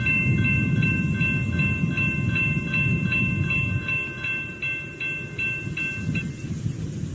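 Railroad grade-crossing bell ringing in a steady, fast rhythm of about two and a half strikes a second, stopping about six seconds in, over a steady low rumble.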